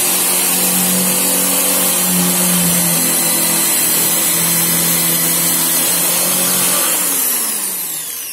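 Handheld electric drill boring a hole through a wooden board, its motor running at a steady high whine. Near the end the whine falls in pitch and dies away as the drill is let off and spins down.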